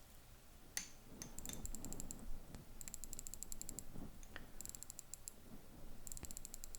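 Omega Speedmaster Moonwatch's hand-wound calibre 3861 being wound by its crown, held close to the microphone: four quick runs of rapid, fine ratcheting clicks, one run per twist of the crown, with light handling rustle between them.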